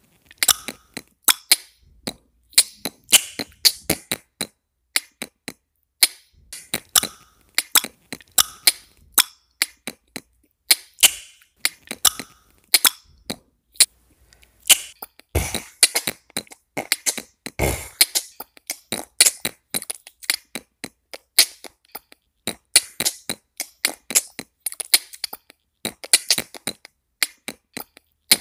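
Beatboxing: a dense stream of sharp mouth clicks and pops in an uneven rhythm, with two deeper kick-like hits a little past halfway.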